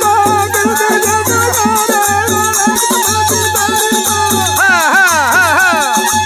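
Algoza, the Rajasthani paired double flute, playing a folk melody with quick ornaments over a held drone note, with a run of falling slides near the end. A barrel drum (dholak) keeps a steady beat under it, along with a rapid rattling hand percussion.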